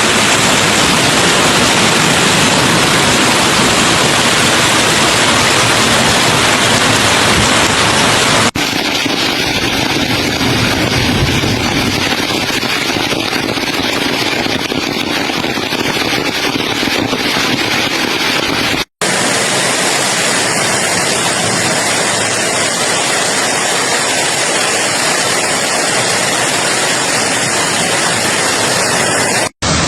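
Heavy hail and rain coming down hard: a dense, steady hiss with no single strikes standing out. It comes in three clips, with abrupt cuts about 8 and 19 seconds in and again just before the end.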